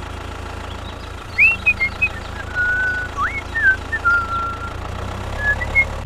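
Steady low engine drone, with a string of short whistled chirps and glides over it starting about a second and a half in.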